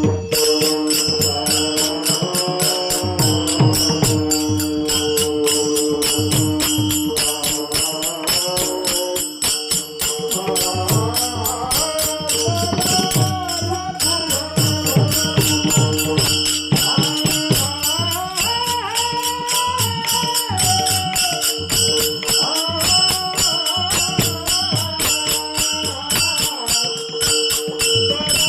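Marathi devotional singing to Vitthal: one voice singing a bhajan melody over steady drone notes, with metallic percussion jingling in a fast, even beat.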